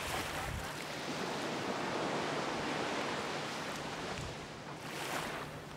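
Surf washing onto a beach: a steady rush of breaking waves that swells and eases.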